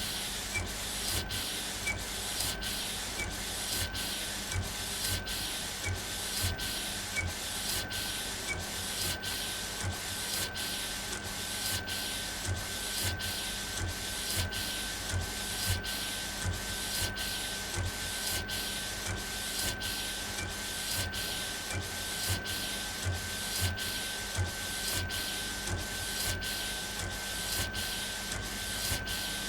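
Epson Stylus Pro 4880 large-format inkjet printer printing: the print-head carriage shuttles back and forth at about three passes every two seconds, with a soft knock at each turnaround over a steady whine.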